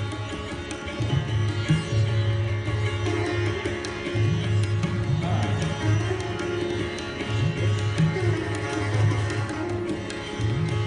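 Handmade tabla and a sitar playing together: the bayan's deep ringing strokes, some bent upward in pitch, under quick, crisp dayan strokes, with the sitar's plucked melody ringing above.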